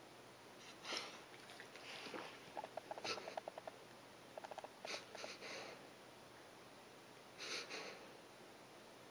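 Great Pyrenees dog reverse sneezing: three bouts of sharp, hissy intakes through the nose and rapid fluttering runs of about ten pulses a second, with short pauses between bouts. Reverse sneezing is a spasm of the dog's soft palate and throat.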